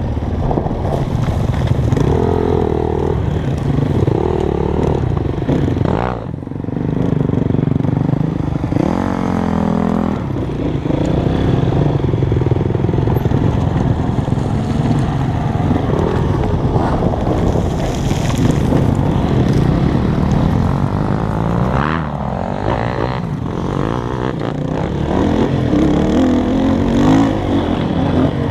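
Dirt bike engine running under throttle as the bike rides along, its pitch rising and falling as it is revved and backed off, with a brief drop about six seconds in.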